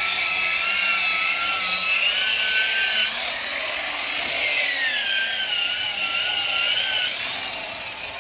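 Electric polishing machine running on lacquered car paint: a motor whine over the rubbing of the pad. The pitch wavers and dips as the machine is loaded, and it stops about seven seconds in.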